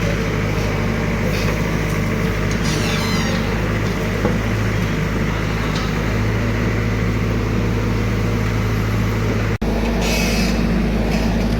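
JCB excavator's diesel engine running steadily under work, a low continuous hum, with a brief abrupt break about nine and a half seconds in.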